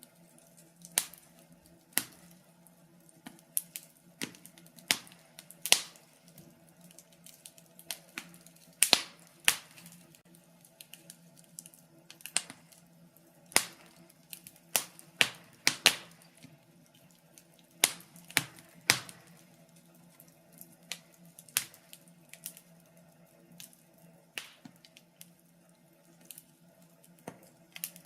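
Wood fire crackling in a fireplace: irregular sharp pops and snaps, roughly one or two a second, some much louder than others.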